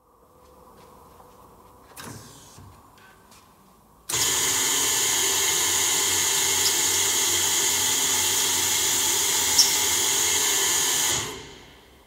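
Pressta Eisele Multifor door band drill running: a click about two seconds in, then the drilling head starts abruptly with a loud, steady, hissy running sound, holds evenly for about seven seconds and dies away when it is switched off.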